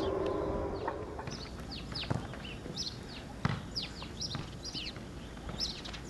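Electronic civil-defence siren with horn loudspeakers ending its last howl tone, the pitch sliding down and fading out within the first second. Small birds then chirp with quick, high, downward-sweeping calls, with two sharp knocks about two and three and a half seconds in.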